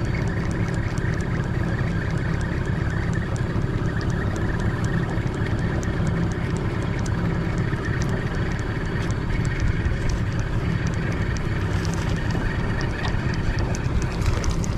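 Boat motor running steadily in forward gear at trolling speed, with light ticking over it.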